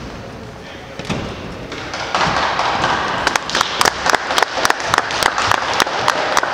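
An audience applauding in a large gym, starting about two seconds in after a couple of dull thuds, with one person's sharp claps close by at about four a second.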